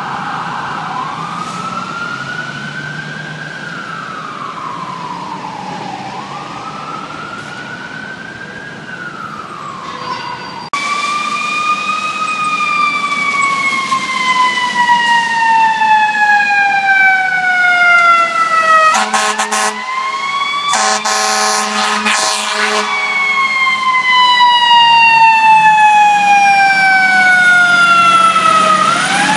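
A distant siren rising and falling slowly, then after an abrupt change a much louder fire truck's mechanical siren, an FDNY ladder truck's Federal Q-type, winding down in long falling tones and winding back up. About two-thirds of the way in, air horn blasts cut through it.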